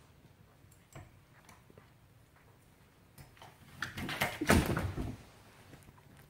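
Rattling and knocks as a cat jumps off a metal curtain rod, the burst of noise starting a little under four seconds in after a few quiet seconds.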